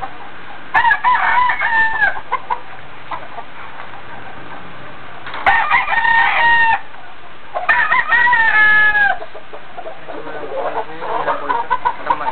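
Roosters crowing: three long crows in turn, each dropping in pitch at its end, then a lower, rougher call near the end.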